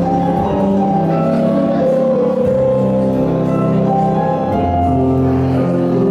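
Instrumental ballroom dance music playing steadily, with held notes and chords that change about every second.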